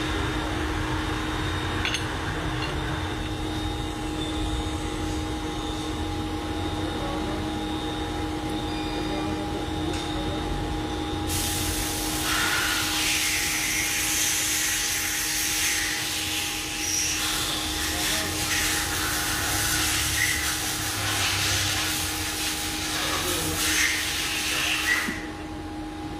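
CNC milling machine running with a steady electric hum. About eleven seconds in, a loud hiss joins it and stops shortly before the end.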